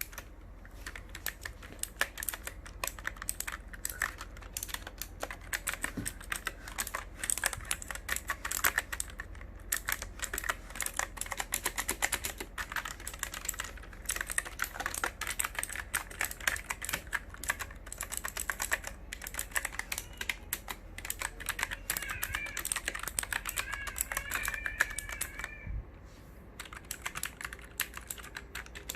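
Computer keyboard being typed on quickly and continuously, a dense run of irregular key clicks. Near the end a wavering high-pitched tone sounds for a few seconds over the typing.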